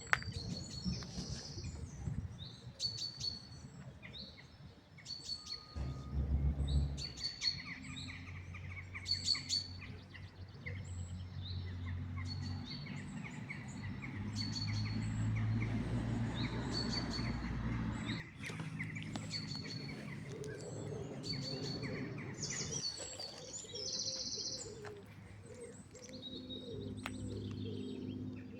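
Birds chirping and calling, short high notes repeated every second or so. A low rumble comes in about six seconds in and fades out near the middle.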